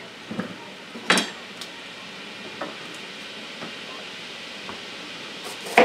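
Chef's knife knocking on a cutting board as a red bell pepper is cut and seeded: a sharp knock about a second in, a few light taps, and another sharp knock near the end, over a steady hiss.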